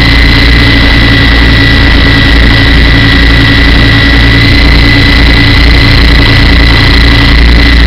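Small indoor radio-controlled helicopter in flight, its motor and rotors heard from the onboard camera: a loud, steady high-pitched motor whine over a fast low throb from the rotor blades.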